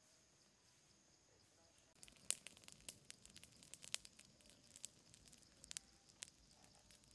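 Open fire of dry leaves and twigs crackling, with irregular sharp pops and snaps that start about two seconds in.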